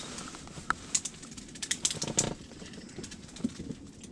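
Scattered light clicks and taps from handling an ice-fishing rod and spinning reel, with a short rattling buzz about two seconds in.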